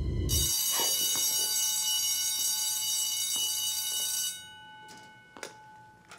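Electric school bell ringing loudly and steadily for about four seconds, starting suddenly and cutting off; a few faint taps follow.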